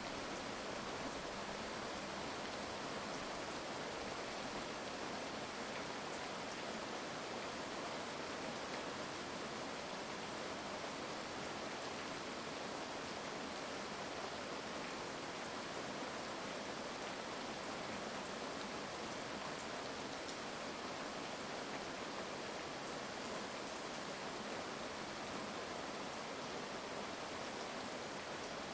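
Heavy rain falling steadily, an even hiss with scattered drop ticks.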